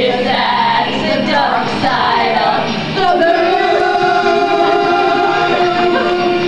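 A group of voices singing a song together, then holding one long note from about three seconds in.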